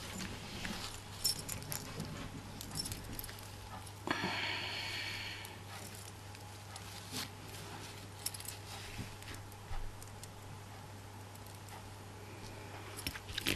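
Small metal clicks and jingles of a key ring and snap-hook clasp being handled, with a short rustle about four seconds in.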